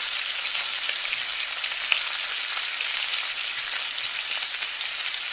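Hot oil sizzling steadily in a kadai as lightly crushed, skin-on garlic cloves fry with mustard seeds for a tempering.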